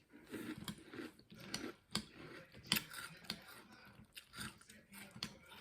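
A person chewing a mouthful of crunchy Cap'n Crunch cereal in milk, close to the microphone: irregular crisp crunches and wet mouth sounds.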